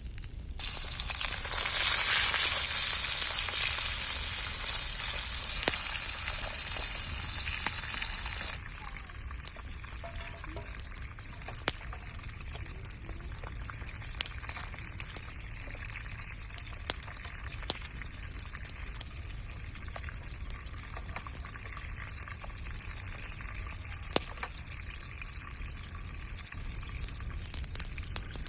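Food frying in hot oil in a pan: a loud sizzle starts about half a second in and drops abruptly after about eight seconds to a quieter sizzle with scattered clicks.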